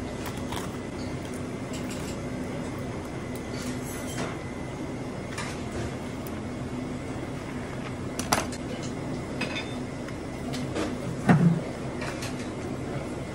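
Large kitchen knife and hands working a whole turbot on a plastic cutting board: scattered soft clicks and knocks over a steady background hum, with a louder thud near the end.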